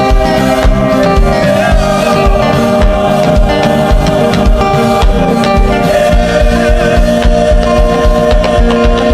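Gospel worship music: held chords over a steady low beat, with a wavering sung or played melody line.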